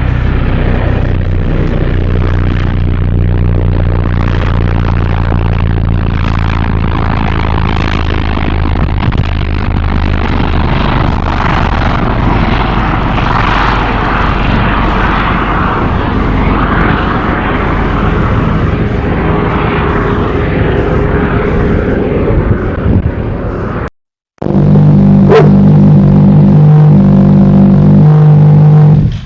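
Loud, steady low droning hum. It drops out briefly about 24 seconds in, then comes back louder as an even, pitched hum.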